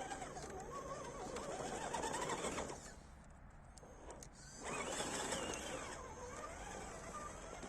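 Electric motor and gearbox of a 1/10 scale RC crawler whining, the pitch rising and falling as the throttle changes. It stops for about two seconds just before the middle, then picks up again.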